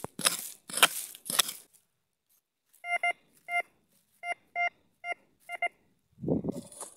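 A small hoe strikes and scrapes hard, stony soil a few times. Then a metal detector gives a broken run of short beeps, about seven over three seconds. This is the choppy 'picado' signal that the detectorist says usually means a coin. Another short scrape comes near the end.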